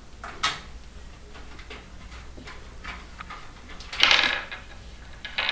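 Thumb screws on a PC case's side panel being turned out by hand: a sharp click, faint small ticks of metal handling, and a short scrape about four seconds in.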